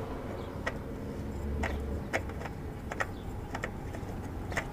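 Light, irregular clicks and taps, about eight of them spread unevenly, over a steady low hum: handling noise as an oil filter and parts are moved about under a car.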